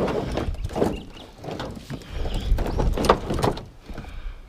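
A string of irregular knocks and clatter over a steady low background noise.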